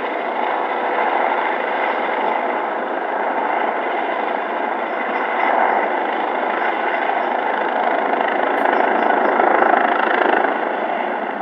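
Police helicopter flying over a city, its rotor and engine noise blended into a steady city din. The noise swells a little about nine seconds in, then eases.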